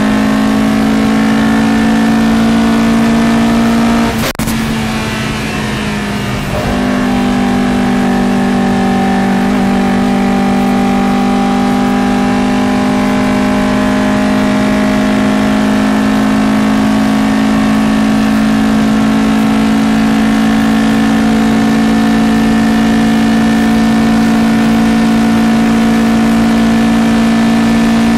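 Matra Jet 6's Renault Gordini 1296 cc four-cylinder engine at racing speed, heard from inside the cockpit. About four seconds in there is a sharp click and the engine note drops away for about two seconds. It then comes back on and pulls hard, its pitch slowly climbing.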